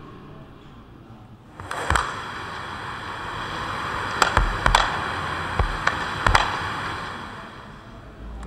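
Electronic hissing, rushing noise from a bare loudspeaker driver lying face-up on the floor. It swells up a couple of seconds in and fades near the end, and about six sharp clicks land in the middle of it.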